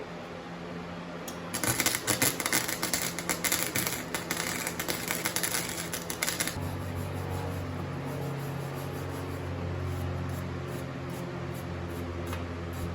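Flux-core arc welder laying a bead: a loud, dense crackle that starts about a second and a half in and cuts off suddenly after about five seconds. A steady low hum follows.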